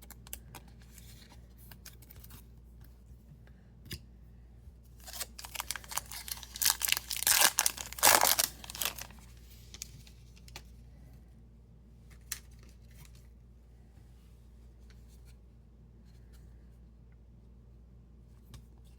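A trading card pack's wrapper being torn open: a dense tearing, crinkling burst lasting a few seconds from about a third of the way in, loudest just before the middle. Before and after it there is quiet handling of cards with scattered small clicks.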